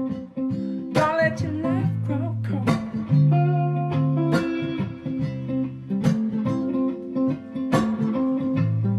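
Music: a guitar-led song with bass notes and a steady beat, in an instrumental passage between sung lines.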